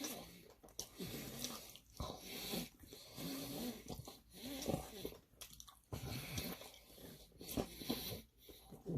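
Close-up chewing and biting of someone eating sticky, sauced chicken wings, in repeated irregular mouthfuls.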